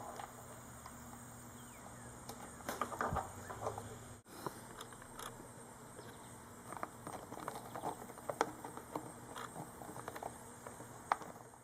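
Faint scattered clicks and rustling of hands handling a small motorcycle turn-signal flasher relay, plugging in its connector and pressing it onto Velcro.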